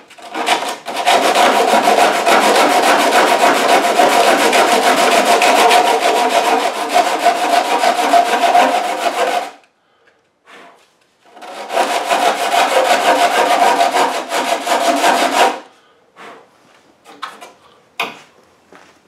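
A small piece of wood being sanded smooth, with a steady abrasive scraping in two long runs, one of about nine seconds and one of about four, followed by a few light knocks near the end.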